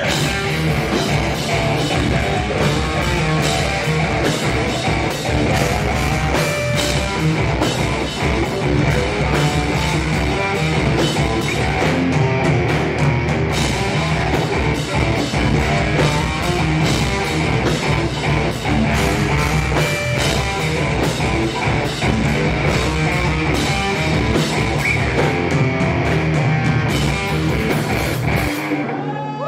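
Live rock band playing: electric guitar, bass guitar and drum kit together, loud and dense, until the whole band stops abruptly near the end.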